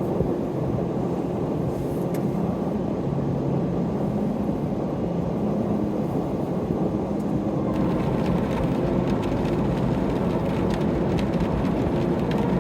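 Steady low rumble inside a car, with a hiss joining about eight seconds in.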